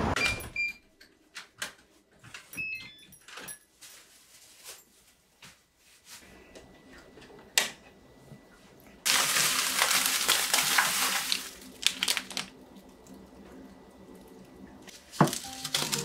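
A plastic carrier bag being handled, rustling loudly for about two and a half seconds about nine seconds in, with scattered light clicks and knocks of kitchen things around it and one sharp knock near the end. Near the start there are a few faint short high chirps.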